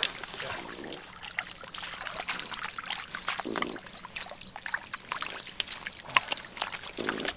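Catfish flopping in shallow muddy water, making irregular wet slaps and splashes.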